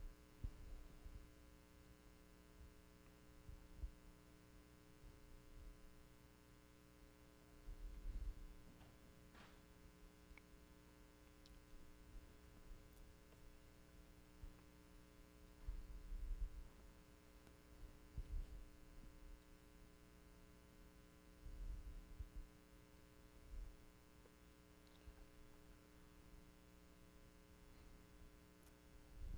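Near silence with a steady electrical mains hum, and a few soft low thumps now and then.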